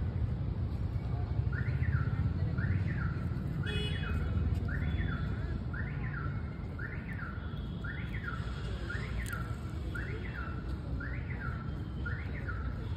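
Car alarm siren, its tone sweeping up and down in pitch about once a second, over a low steady rumble of traffic.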